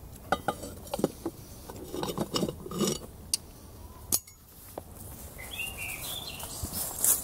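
Cast-iron pot lid being set onto its pot with a metal lid lifter: a run of metal clinks and knocks over the first three seconds or so.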